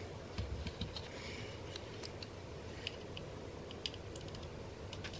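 Small irregular clicks and scratches of a thin metal tool prying the skates off the underside of a Glorious Model O- gaming mouse, with a few soft handling knocks in the first second.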